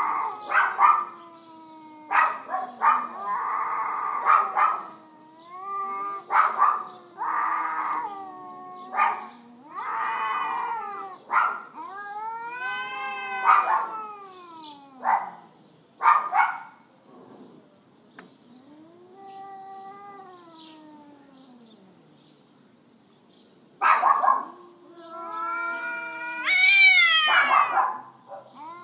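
Domestic cats caterwauling in a fight: long drawn-out yowls that waver up and down in pitch, with short sharp noises between them. It goes quieter for a few seconds in the middle, and a loud, shrill yowl rises near the end.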